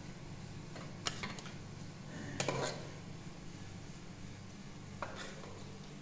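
A few sharp clinks and knocks of kitchenware being handled: two about a second in, a short rattle at about two and a half seconds, and one more at five seconds, over a steady low hum.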